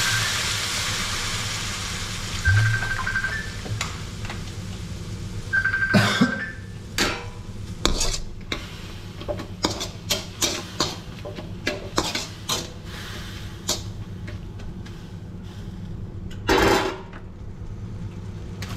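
Metal spatula scraping and knocking against a wok as noodles are stir-fried, in quick irregular strokes. It opens with a loud hiss of sizzling steam that fades over the first couple of seconds.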